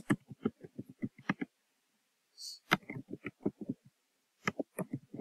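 Computer keyboard typing: quick, irregular runs of keystrokes, with a pause of about a second after the first run and a shorter pause before the last.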